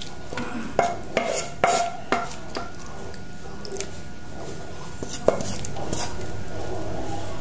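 Kitchen utensils clinking and knocking against a dish, a quick run of sharp knocks in the first couple of seconds and one more about five seconds in, as sauce and toppings are spooned over cooked octopus.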